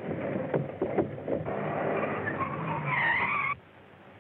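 Car pulling up and skidding to a stop, with a squeal of tyres near the three-second mark; the sound then cuts off suddenly, leaving a faint hiss.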